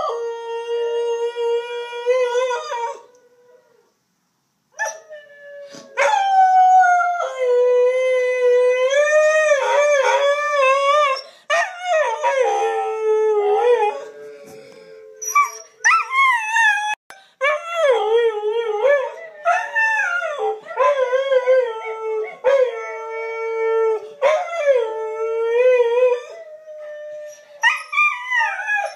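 Husky howling: one long steady howl, a short pause, then a run of wavering howls whose pitch swoops up and down, broken by brief breaths.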